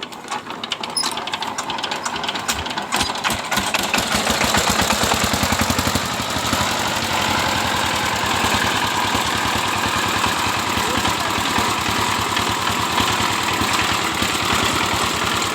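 12 hp single-cylinder Chinese diesel engine starting up, its firing picking up over the first few seconds, then running steadily with a fast knocking beat. This is the extra noise from the governor gear side cover that the uploader complains of.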